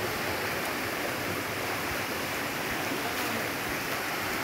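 Hill stream running over rocks in a steady, even rush of water.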